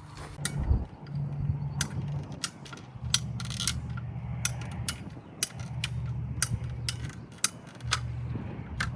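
A run of sharp, irregular mechanical clicks and clacks, about fifteen over several seconds, over a low hum that comes and goes.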